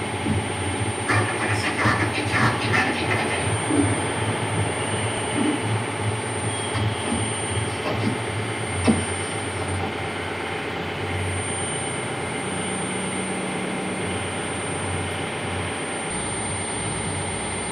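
Steady, dense rumbling noise with a hum and a faint high whine, the electronic soundscape of a sound art installation playing in the room. A few scattered clicks sound in the first seconds, and a single sharp click comes about nine seconds in.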